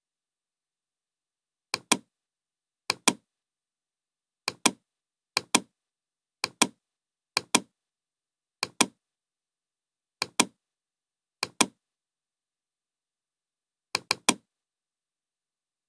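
Computer mouse button clicking about ten times at uneven intervals. Each click is a quick pair of sharp snaps, press and release, and the last one near the end comes as a triple.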